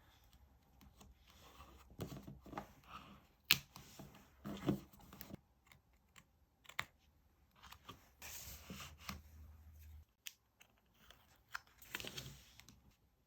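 Paper and stickers being handled while decorating a diary: scratchy rustling and tearing-like stretches, broken by sharp clicks and taps, the loudest click about three and a half seconds in.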